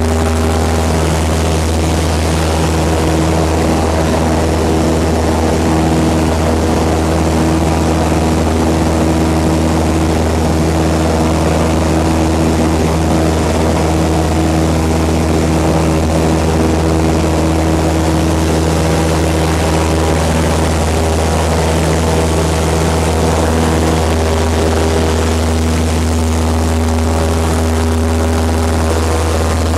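Cessna Skyhawk's piston engine and propeller running steadily at climb power just after take-off, heard inside the cabin as a loud, even drone with a deep hum.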